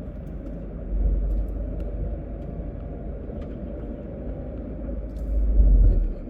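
Vehicle driving slowly: a steady low engine and road rumble, swelling louder twice, about a second in and near the end.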